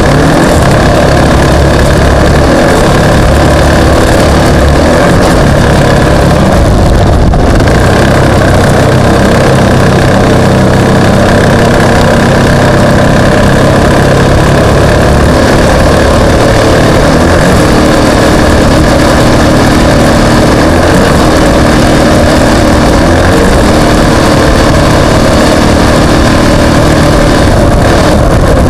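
Off-road racing vehicle's engine running loud and steady, its pitch shifting up and down every few seconds.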